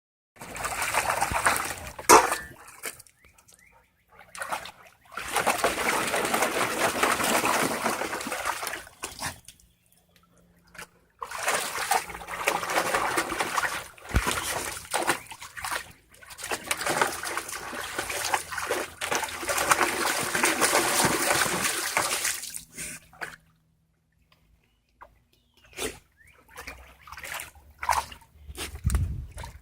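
A dog splashing water in its paddling pool, in several bursts of a few seconds each with short pauses between.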